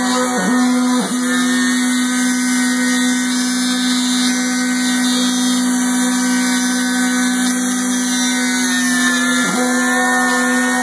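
Homemade CNC milling machine running, its motor giving a steady whine. The pitch dips briefly and recovers three times: twice in the first second or so and once near the end.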